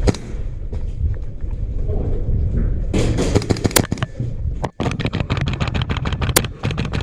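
Airsoft guns firing in rapid strings of sharp cracks, with BB impacts, starting about three seconds in and breaking off briefly before resuming.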